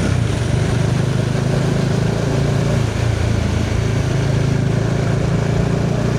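Bajaj Dominar 400's single-cylinder engine running steadily while the bike is ridden, mixed with an even rush of wind and road noise.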